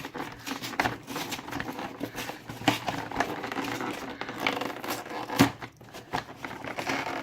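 Packaging of a Pokémon trading-card collection box being handled and opened: irregular crinkling and rustling with small clicks, and one sharper knock about five and a half seconds in.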